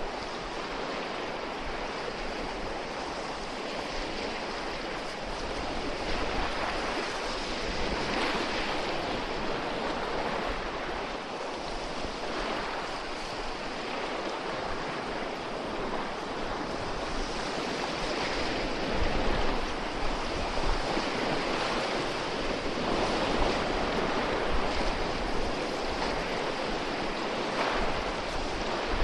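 Steady rush of water that swells and eases, with gusts of wind buffeting the microphone now and then.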